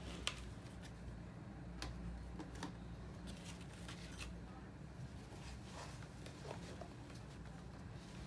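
Faint handling sounds: scattered light taps and rustles as a paper pad and a cloth tote bag are moved about on a wooden table, over a steady low hum.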